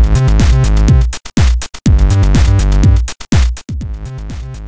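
Electronic intro music with a drum-machine beat and deep kicks that drop in pitch. It becomes much quieter about three-quarters of the way through.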